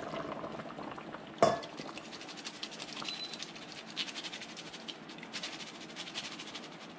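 Pot of chicken and tamarind broth simmering, with soft bubbling and tamarind juice dripping from a mesh strainer held over it as many fine ticks. One sharp clink about a second and a half in.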